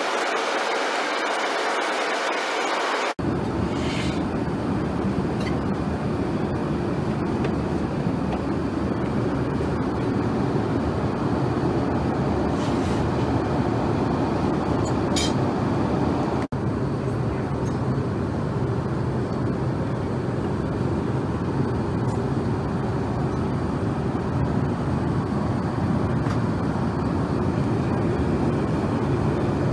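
Steady in-flight cabin drone of an Airbus A380: a deep rumble of airflow and engines. For about the first three seconds there is only a thinner hiss without the low rumble, then the sound cuts abruptly to the full rumble. A few faint clicks come about 4 and 15 seconds in.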